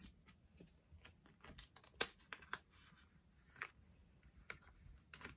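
Faint rustling and scattered light clicks of photocards and plastic binder sleeves being handled, with a few sharper ticks.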